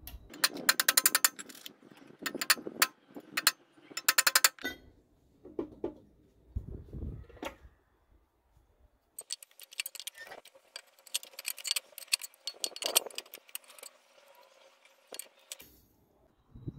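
Hammer striking nails through a steel angle bracket into a wooden beam: bursts of quick, sharp metallic strikes, several a second, with pauses between the runs.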